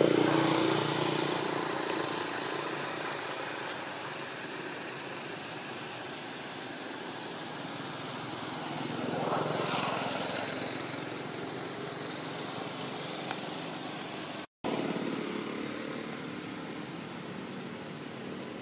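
Motor vehicles passing, one fading away at the start and another swelling and fading about halfway through, over a steady outdoor hiss. The sound cuts out for a moment about three-quarters of the way in.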